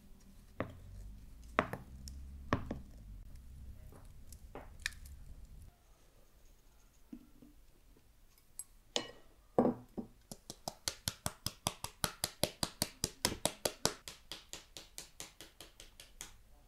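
Knife chopping fast on a cutting board in an even run of about six or seven strokes a second, beginning about ten seconds in. Before that come a few single knocks over a low steady hum.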